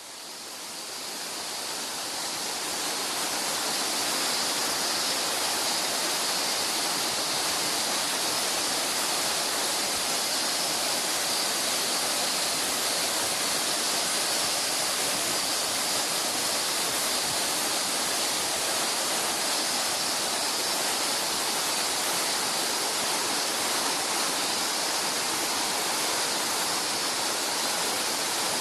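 Waterfall pouring, a steady rushing of falling water; the sound rises over the first few seconds and then holds constant.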